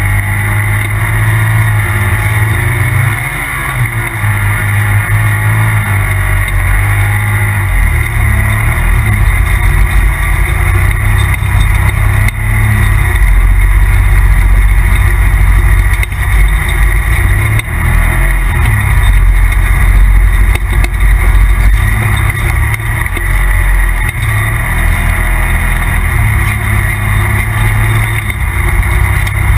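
Polaris RZR Turbo side-by-side under way, its turbocharged engine running loud and steady.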